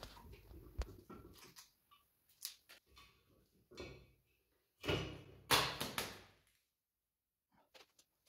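Scattered metal clicks and knocks as the lower block of a Mazda 2.2 diesel is lifted off its upper block, with a louder clunk and scrape about five seconds in.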